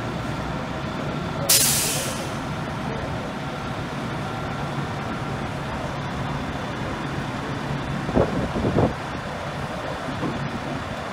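Fire engine's diesel engine running steadily, with a sudden sharp hiss of its air brakes about a second and a half in. A couple of brief louder sounds come about eight seconds in.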